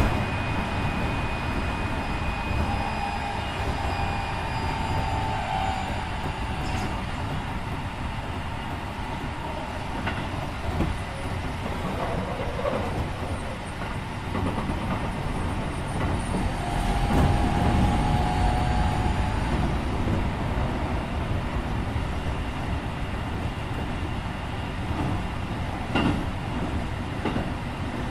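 Inside a Keikyu 1500 series electric train car (refurbished DeHa 1569 with Mitsubishi IGBT-VVVF drive) running along the line: a steady low rumble with a few sharp clicks of the wheels over rail joints and, twice, a brief faint high tone.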